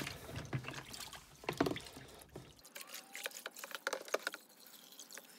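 Water sloshing and dripping in a plastic tub as a foam air filter is squeezed and kneaded by hand in soapy cold water, with irregular small splashes.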